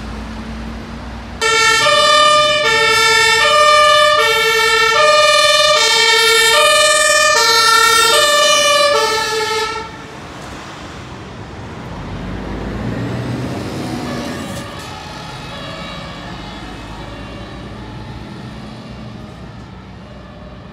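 German two-tone emergency siren (Martinshorn) on a fire service vehicle, loud and close, switching between a low and a higher note about every 0.7 s, then dropping away sharply about ten seconds in. Afterwards road traffic passes, with the siren still faint in the distance.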